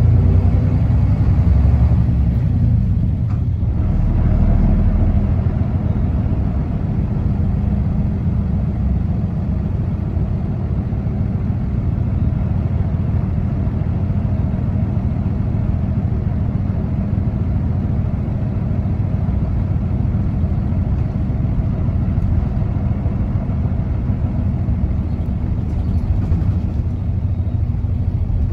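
Running sound inside the cabin of a large Isuzu U-LV city bus with a Fuji Heavy Industries 7E body while it drives: the diesel engine and road noise make a low, steady drone. The drone is a little louder over the first few seconds.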